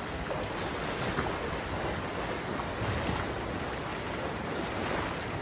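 Steady rushing noise of flowing floodwater from the overflowing creek.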